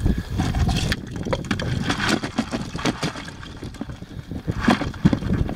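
Wind buffeting the microphone with a low, uneven rumble, broken by scattered irregular clicks and rustles.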